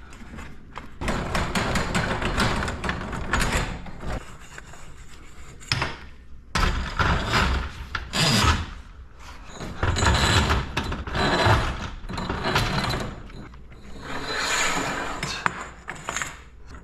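Metal garage door hardware being handled and worked by hand: a series of rubbing, scraping strokes, each a second or two long, with clicks and knocks between them.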